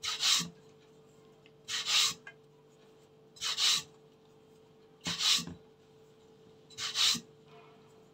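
Floury hands rubbing small bits of flour dough between fingertips and palm to roll them into hand-made semai: five short rubbing strokes, one about every second and a half.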